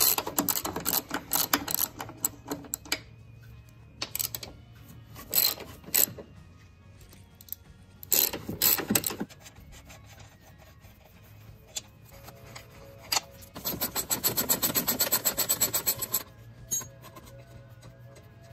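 Socket ratchet clicking in short spells as the front strut top-mount nuts are loosened, with a longer, fast run of even clicks about three-quarters of the way through.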